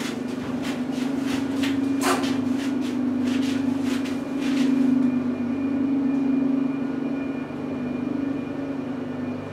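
1973 KONE two-speed traction freight elevator travelling in its shaft: a steady hum from the car's drive, with irregular clicks and rattles during the first half, then running smoothly with a faint high whine.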